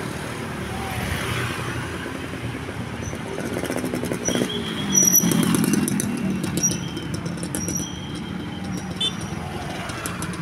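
A heavy road vehicle passing with its engine running, loudest about halfway through, with a drop in pitch as it nears. A few short high-pitched tones sound in the middle.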